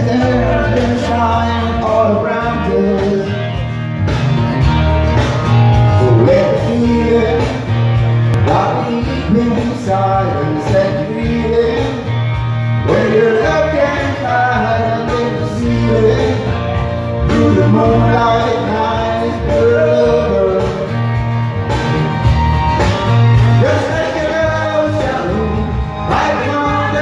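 Karaoke: men singing into microphones over an amplified backing track with a heavy bass line.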